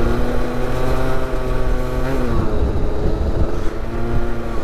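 50cc two-stroke scooter engine running at fairly steady revs, its pitch dipping briefly about two seconds in, over a low rumble.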